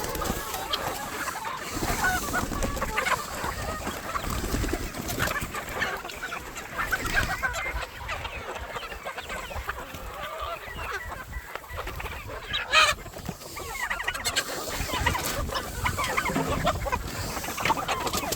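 A flock of chickens clucking continuously, many short overlapping calls. About two-thirds of the way through, one brief sharp sound stands out as the loudest moment.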